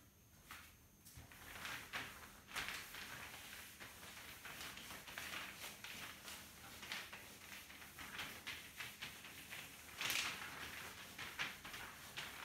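A cloth wiping marker off a whiteboard: faint, irregular rubbing strokes, the loudest swipe about ten seconds in.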